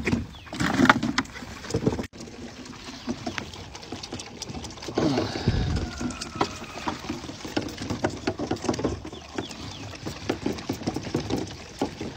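Goat kids crowding a bottle-feeding rack, with many quick sucking, slurping and jostling noises. One kid bleats about five seconds in.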